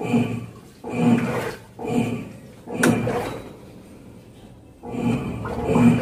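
Electrolux LTE09 top-loading washing machine agitating: the motor drives the agitator back and forth in short humming strokes about once a second, with a pause after about three and a half seconds and a sharp click just before it. The machine is on a test run after its clutch and drive were rebuilt.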